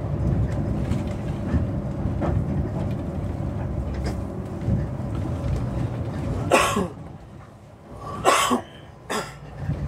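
Cabin noise of a MAN RR8 shuttle bus under way: a steady low engine and road rumble that drops in level about seven seconds in. Three short sharp noises come near the end.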